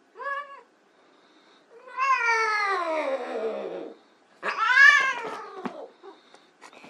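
Persian cat meowing three times. First a short meow, then a long drawn-out meow that falls steadily in pitch, then the loudest meow, which rises and falls.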